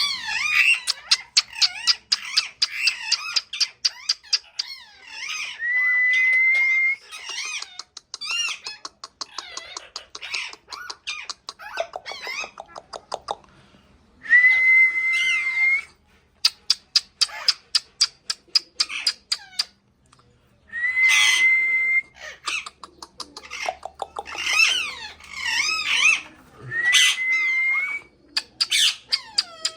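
Pet parrot calling: quick trains of short chirps, wavering squawks and chatter, broken four times by a held, slightly rising whistle.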